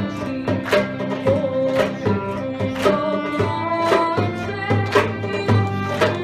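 A choir and solo voice singing a Bosnian folk song (sevdalinka), accompanied by violin, strummed acoustic guitars, plucked small string instruments and a frame drum marking the beat with regular strikes.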